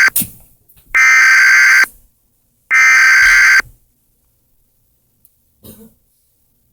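Emergency Alert System SAME header data bursts: harsh, buzzy digital tones, each about a second long with about a second's gap. The tail of one burst is followed by two more. This is the coded header that opens an emergency alert broadcast.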